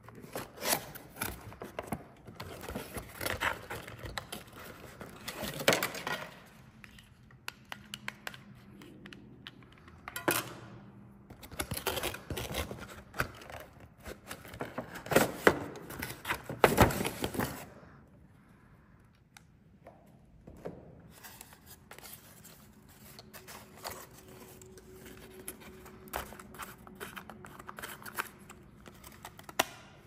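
Cardboard toy-car packaging being handled and opened: irregular scraping, tapping and rustling of card and plastic as an RC car is slid out of its box. The handling is busiest in the first half and quieter later on.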